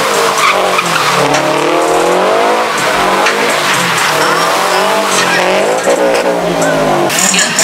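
Car engine revving hard, its pitch rising and falling again and again, with tires squealing as the car spins donuts.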